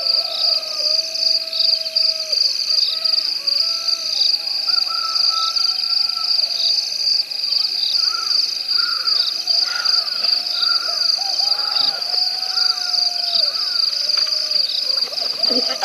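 Night chorus of the bush: a steady, high-pitched insect trill with a regular pulse about once a second, over quieter animal calls that rise and fall lower down and grow busier about halfway through.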